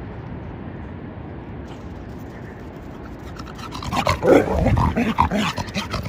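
A Norwegian Elkhound gives a quick run of short whimpers and pants, starting about four seconds in, over steady low background noise.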